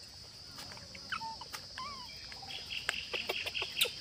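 Steady high-pitched insect drone, with a few short chirping calls around the middle and scattered clicks and rustles that grow busier near the end.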